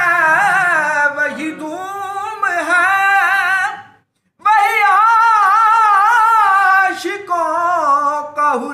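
A man singing an Urdu Sufi kalam unaccompanied, drawing out long ornamented notes whose pitch bends up and down. He breaks off for a moment about four seconds in, then takes the line up again.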